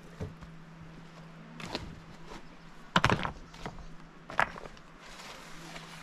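Handling noise as beehives are uncovered: scattered knocks and rustling while the stones and white plastic sacks covering the wooden hive boxes are moved, with two sharper knocks about three and four and a half seconds in.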